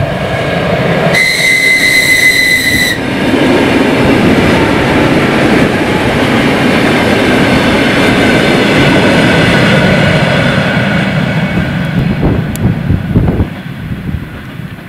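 Suburban electric multiple unit passing close by at speed. A high whistle sounds for about two seconds near the start, then comes the rumble of the passing cars with a whine that slowly falls in pitch. The sound fades a little before the end as the train moves away.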